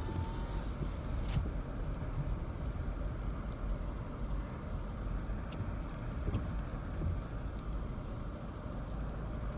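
Steady low rumble of a car driving, heard from inside the cabin: engine and tyre noise, with a few faint light clicks.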